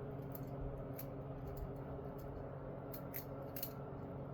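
Balisong (butterfly knife) being flipped by hand: a scatter of faint, light metallic clicks at uneven intervals as the handles and blade swing and tap together, over a steady low hum.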